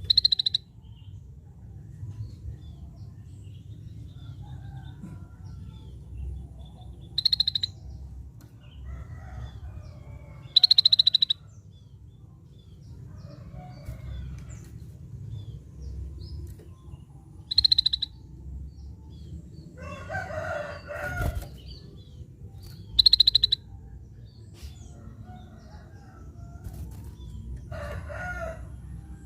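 Scaly-breasted bulbul (cucak bersisik) calling: five loud, short, fast-rattling high notes spaced several seconds apart. Fainter, lower calls come from other birds in between.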